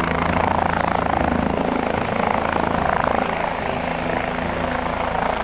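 Helicopter sound effect: a steady, fast rotor chop over a low engine drone.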